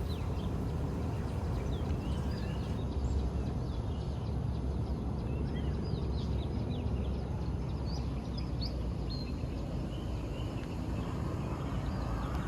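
Outdoor ambience: many short, high bird chirps scattered over a steady low rumble.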